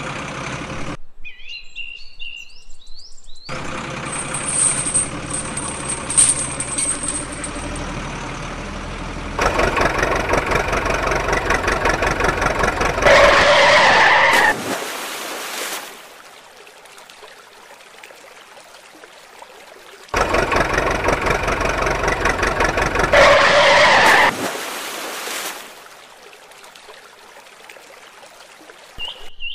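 Vehicle engine sound running and revving in edited blocks that switch on and off abruptly, louder in two long stretches with quieter running between; a few bird chirps are heard in a short gap about a second in.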